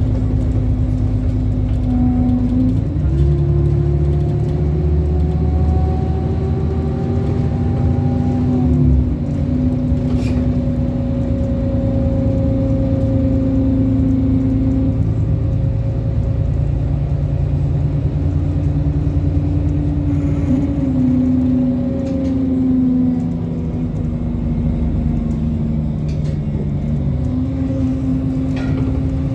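MAN Lion's City city bus heard from inside the passenger cabin: its six-cylinder diesel engine and drivetrain drone as the bus drives. The engine note climbs for several seconds and drops sharply about nine seconds in as the automatic gearbox changes up, with further smaller steps in pitch later on.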